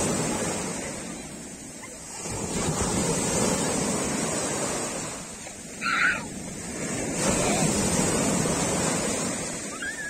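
Atlantic surf washing up a sandy beach, rising and falling in about three surges of foaming wave-wash. A short high cry cuts through about six seconds in.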